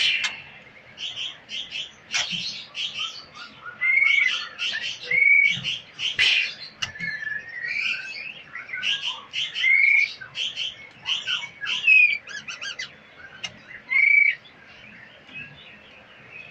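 Caged songbirds chirping and singing: quick runs of high chirps throughout, with a short whistled note every couple of seconds.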